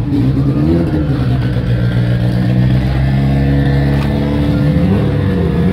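Many car engines revving together at once, held at high revs with their pitch rising and falling: a crowd rev-up of show cars.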